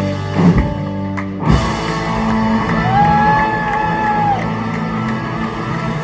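Live rock band of electric guitars, bass and drums playing loudly. Two sharp hits land about half a second and a second and a half in, and later a single held note rises and falls slightly over about a second and a half.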